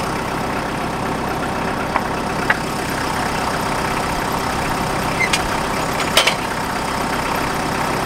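An engine idling steadily, with a few sharp knocks of wooden boards being handled, the loudest about six seconds in.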